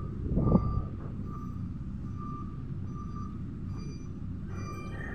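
Heavy truck's reversing alarm beeping at a steady pace, a little more than once a second, as the tractor-trailer backs slowly, over the low running of its engine. A louder burst of noise comes about half a second in.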